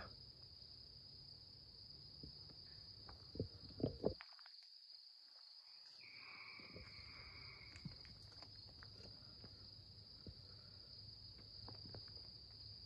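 Quiet steady chorus of night insects, a constant high-pitched trill, with two soft footstep thumps about three and a half seconds in.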